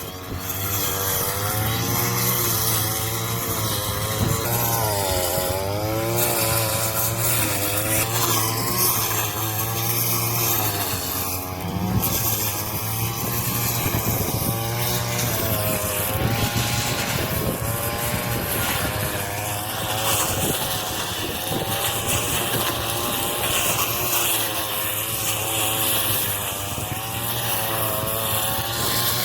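Engine-driven straw-cutting machine running steadily, its engine pitch wavering up and down as it takes on and sheds the load of straw. A higher hiss grows stronger about two-thirds of the way through.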